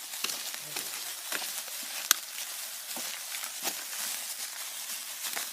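Lit sparkler fizzing with a steady hiss and scattered sharp crackles, with one louder snap about two seconds in.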